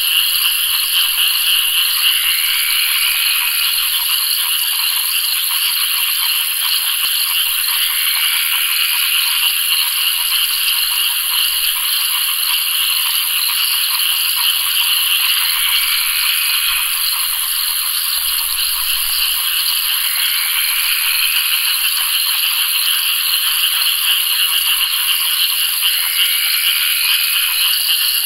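A dense chorus of frogs calling in a continuous rattling trill, steady throughout, with a faint rising note about every six seconds.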